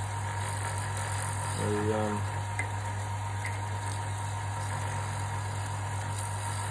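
Wood lathe running with a steady motor hum while a D-bit bores into a wood block, with a brief vocal sound about two seconds in.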